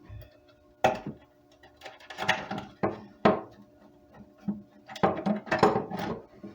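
Clicks, clinks and light knocks of a coping saw's frame and blade being handled while the blade is refitted after its end pin slipped loose. A handful of separate strikes, bunched up near the end.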